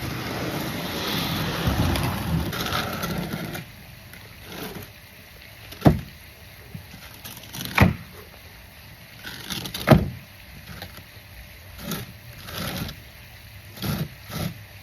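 Repotting work: a rustling, scraping noise of soil and plant handling for about three and a half seconds, then a run of sharp knocks and thumps, the three loudest about two seconds apart, followed by several lighter ones.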